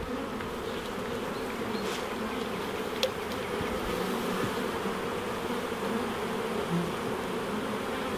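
Honey bees buzzing steadily in a dense, continuous hum around an open hive as frames are moved, with one brief click about three seconds in.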